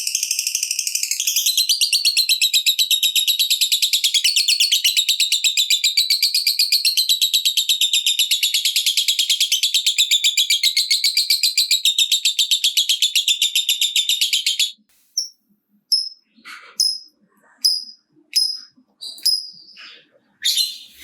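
Lovebird's ngekek: a long, unbroken, rapid chattering trill, high-pitched and loud, that stops abruptly about fifteen seconds in and gives way to short separate chirps.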